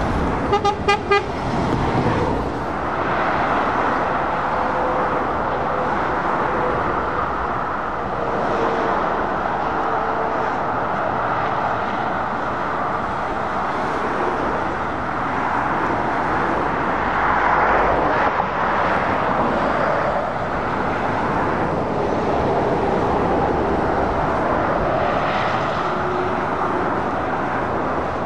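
Steady traffic noise of lorries and cars passing on a dual carriageway, tyre and engine noise swelling as vehicles go by. About a second in, a vehicle horn gives a quick run of short toots.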